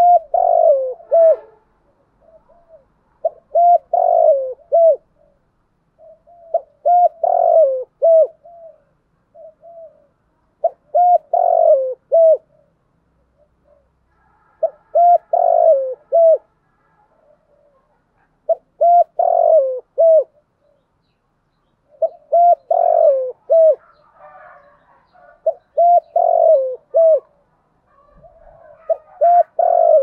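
Spotted dove singing its cooing song: the same short phrase of several hooting notes, repeated about every three to four seconds.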